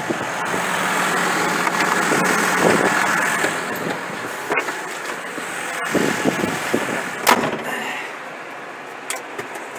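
John Deere 6155R tractor engine running, heard close by the wheels at first and then more muffled from inside the cab, quieter after about seven and a half seconds. Several sharp knocks from climbing into the cab come about four and a half, six and seven seconds in.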